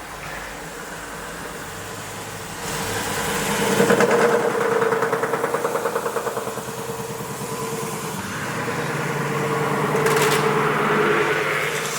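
CNC metal spinning machine running, its spindle turning while the forming roller works a 1.5 mm DKP steel sheet. The hum holds a steady tone, swells louder about three seconds in with a fast, even pulsing, eases off, and swells again near the end with a brief scraping hiss.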